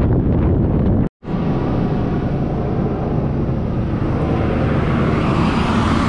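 Wind buffeting the microphone with a motorcycle engine running steadily underneath, broken by an abrupt cut about a second in.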